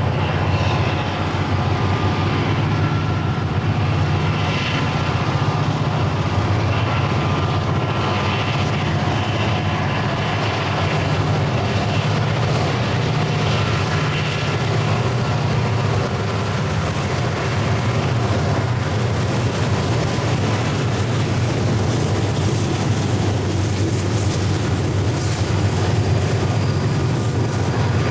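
Several diesel-electric freight locomotives, EMD SD40-2s with a GE AC4400CW, working hard under load on a climbing grade as they pass: a loud, steady low drone with a high whine above it. The following double-stack well cars rolling by blend in near the end.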